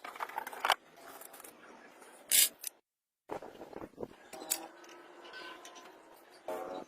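Scattered clicks, taps and short scrapes of small craft parts being handled by hand, broken by a brief dead gap about three seconds in.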